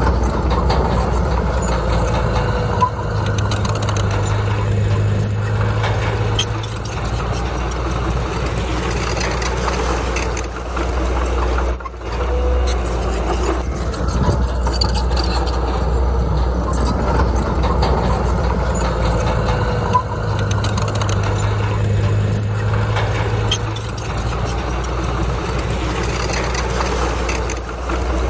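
Heavy diesel earthmoving machinery running steadily with a deep engine drone, dipping briefly about twelve seconds in.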